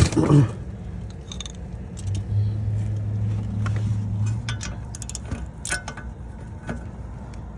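Steel hand tools clinking and rattling: a socket on a wobble extension being handled and fitted onto a hub bolt, in scattered sharp clicks, with a steady low hum for about two seconds in the middle.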